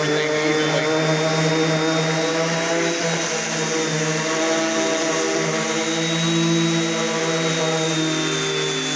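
DeWalt 5-inch random orbit sander with a 120-grit disc running against a flat oak cabinet door: a steady motor hum with a high whine over sanding hiss, its pitch shifting slightly about three seconds in and again near seven.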